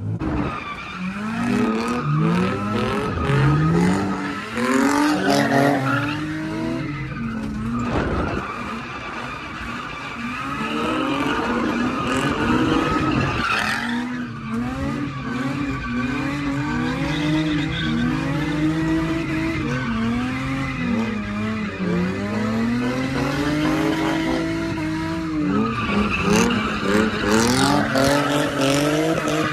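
An Infiniti G35 sedan's V6 is revved up and down in repeated surges while drifting, with tyres squealing and skidding over the wet asphalt. It is heard from inside the car's cabin.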